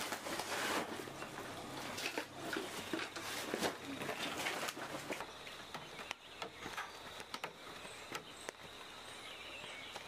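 Cloth bag rustling, with small knocks and clatter, as a woven bamboo basket is packed into it. About halfway through this gives way to quieter outdoor ambience with a steady, high insect drone.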